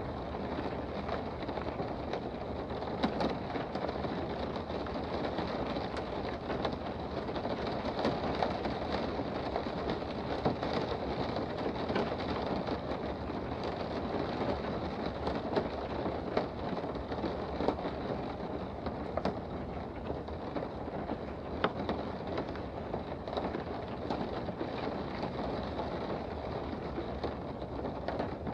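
Steady rain heard from indoors: an even hiss with many sharp drop hits scattered irregularly through it.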